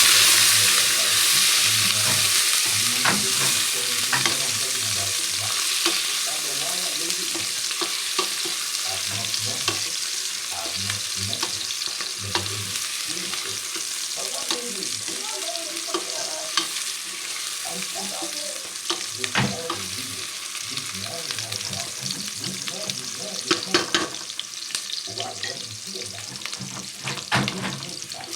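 Food frying in hot oil in a pan. The sizzle is loudest at the start and slowly dies down, while a utensil stirs and knocks against the pan now and then, more often in the second half.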